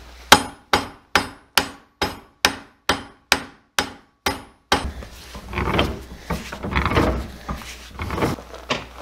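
About eleven hammer blows, a bit over two a second, knock on the stuck piston of a skid steer's hydraulic cylinder rod to work it loose. They are followed by irregular scraping and handling noise.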